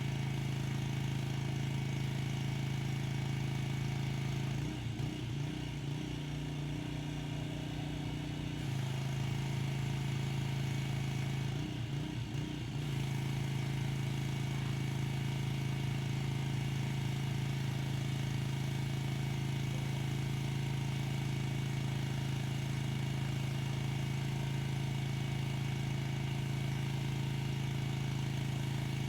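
Pressure washer's small engine running steadily, with steady hiss above it. Its note changes briefly twice, about five seconds in for a few seconds and again about twelve seconds in.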